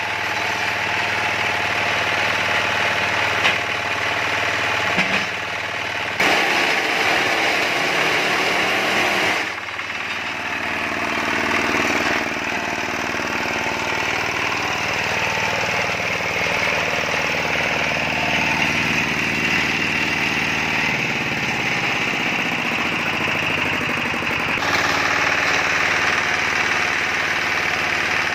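Single-cylinder diesel engine on a mobile concrete hollow block machine running steadily, with a loud metallic rattle from the vibrating steel mould and frame. The tone changes abruptly a few times.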